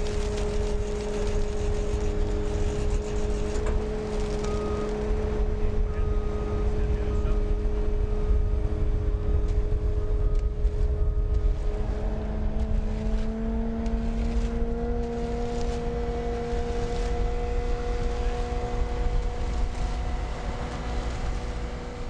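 Bobcat skid-steer loader's diesel engine and hydraulics running steadily under a low rumble, with a whine whose pitch steps up about twelve to fourteen seconds in.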